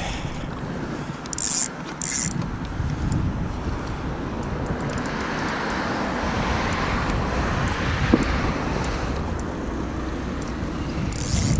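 A car passing on a road close by: tyre noise swells over several seconds and fades, over a steady low rumble of wind on the microphone. Short high buzzes come near the start and again at the end.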